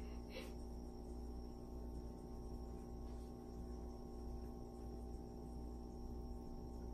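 Steady low hum of running aquarium equipment, an air pump driving a bubbling sponge filter, with a faint high whine held steady over it.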